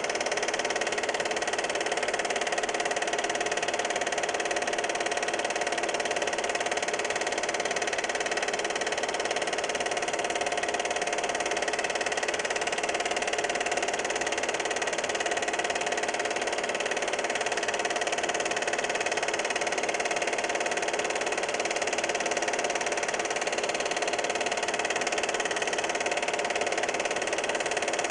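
Steady whirr and clatter of a film projector running, the motor and film transport making an even mechanical drone with a constant hum and hiss.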